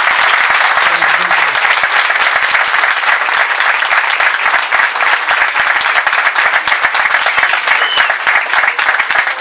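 Audience applauding: many people clapping at once in a dense, steady mass, louder than the speech around it.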